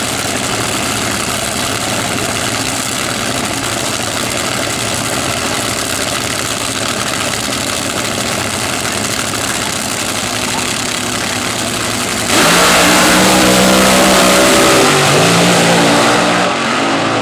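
Two nitromethane-burning fuel altered dragsters running loudly on the start line, then launching about twelve seconds in with a sudden jump in loudness, the engine note shifting up and down as they accelerate away.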